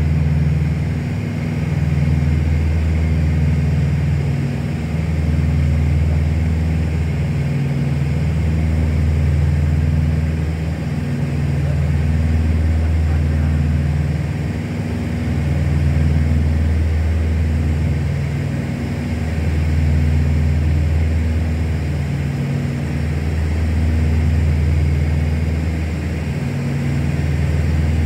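Light propeller airplane's engine and propeller droning steadily, heard inside the cabin, the level rising and falling slowly every few seconds.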